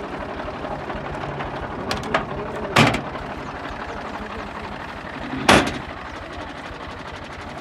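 Tractor diesel engine idling steadily. Two loud knocks sound about three and five and a half seconds in, with a couple of lighter taps just before the first.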